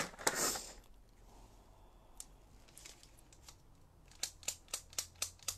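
A soft rustle, then near the end a quick run of sharp ticking clicks, about four or five a second, from hands working at a craft table.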